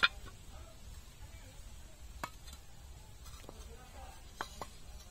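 Bricks and curved clay tile pieces knocking against each other as they are set down to build a stove: one sharp knock at the start, then a few lighter knocks.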